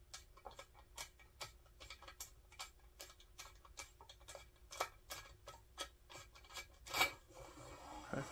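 Light, evenly spaced clicking, about two and a half clicks a second, while a screwdriver loosens the action spring tube nut inside a Remington 1100 shotgun's wooden buttstock. About seven seconds in comes a louder knock, then a brief scraping as the stock slides off the action spring tube and separates from the receiver.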